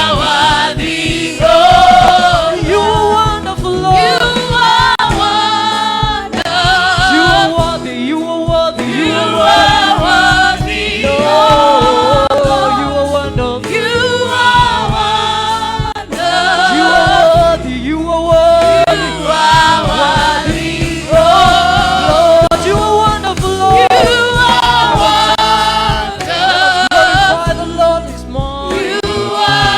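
Gospel worship music: a group of voices singing over a band with a steady beat.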